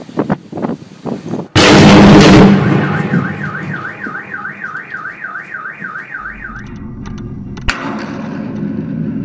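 Crackling pops of a short-circuiting power line. About one and a half seconds in comes a very loud blast lasting about a second, then an alarm warbles up and down for about four seconds, and a single sharp crack comes near the end.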